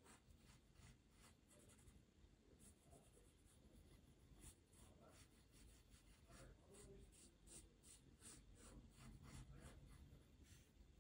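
Faint scratching of sketching strokes on paper: a run of short, quick strokes, some in rapid clusters.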